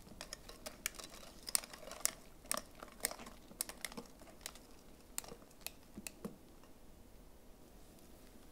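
Light, irregular clicks and taps of kitchen utensils being handled, several a second, thinning out after about six seconds.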